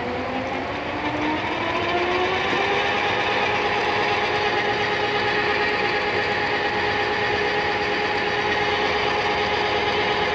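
Hardinge HLV-H-EM toolroom lathe running, its motor whine rising in pitch over the first two to three seconds as it comes up to speed, then holding a steady tone.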